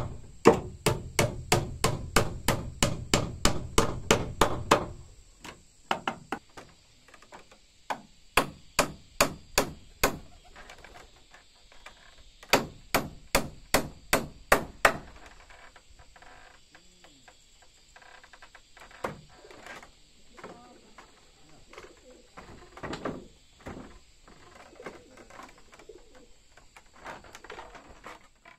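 Claw hammer driving nails into wooden framing. A fast run of blows, about four a second, lasts for the first five seconds. Slower groups of strokes follow up to about halfway, then only light scattered taps. A bird calls faintly in the quieter second half.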